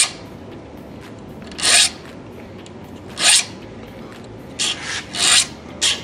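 Small 60-degree triangular saw file rasping across the steel teeth of a dull oscillating multi-tool blade, sharpening it by hand. About six short, separate file strokes, well spaced at first and coming quicker near the end.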